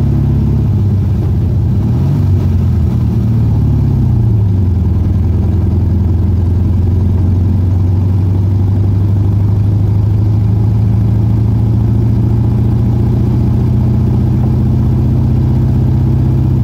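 Volkswagen Fusca (Beetle) air-cooled flat-four engine running while driving, heard from inside the cabin. The engine note rises and falls a couple of seconds in, then settles into a steady drone.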